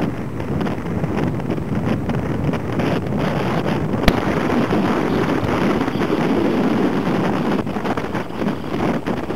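Heavy storm surf churning and breaking close to shore, with wind buffeting the microphone in a steady loud rush. A single sharp click about four seconds in.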